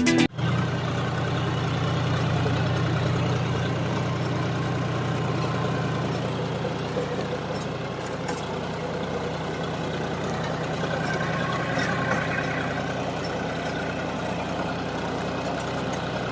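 Tractor engine running steadily with a low, even drone while ploughing a field.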